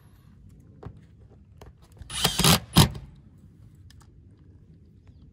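A Metabo HPT cordless impact driver runs for just under a second, about two seconds in, driving a neoprene-washered roofing screw through a pipe boot's metal flange and the steel roof panel. A few faint ticks of handling come before it.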